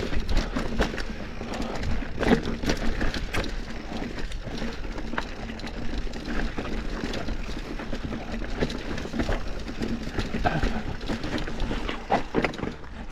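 Cross-country mountain bike riding over rocky trail: a continuous rattle and clatter of tyres, frame and drivetrain with many irregular sharp knocks from the rocks, over a steady low rumble.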